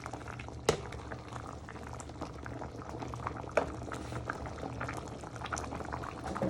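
Tomato-based chicken and chorizo ragu bubbling in a pan, the sauce just come to the boil: a thick sauce popping irregularly, with two sharper pops and a steady low hum beneath.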